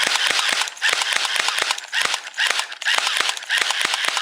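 BlackViper M92F electric airsoft pistol firing in full auto with no BBs loaded: a rapid, even string of sharp clacks over the whir of its battery-driven motor and gearbox, run on fresh AAA batteries.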